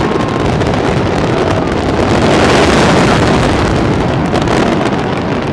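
Fireworks finale barrage: a loud, continuous rumble of many shells going off together, swelling to its loudest about two to three seconds in.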